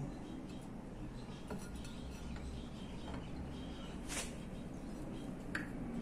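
A few faint, light metallic clinks of metal parts being handled, scattered over a low steady hum.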